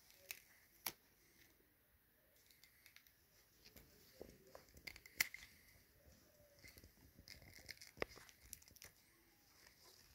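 Faint handling sounds of flat rubber bands being stretched and tied onto a catapult fork: soft rubbing and rustling with a few sharp little snaps, the loudest about five seconds in.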